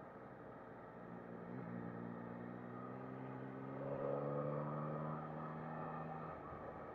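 Yamaha MT-09 SP three-cylinder engine running under light throttle while riding. It steps up in pitch about a second and a half in, swells briefly in the middle, then eases off near the end.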